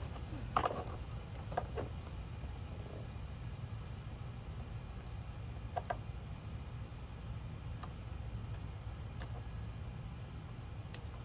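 A few light clicks and rustles as wiring is tugged loose from a plastic ride-on toy car body, over a steady low rumble.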